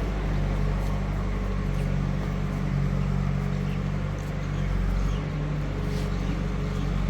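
Diesel engine of heavy equipment running steadily at an even speed, with no revving or clear knocks.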